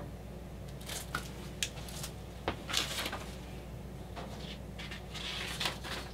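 Hands handling computer case parts: a scattering of light clicks and taps, with two short rustles about three seconds in and near the end.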